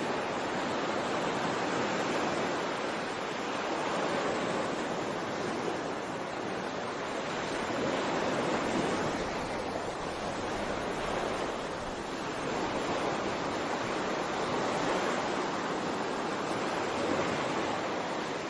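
Waves washing in: a steady rush of water that swells and eases about every four seconds.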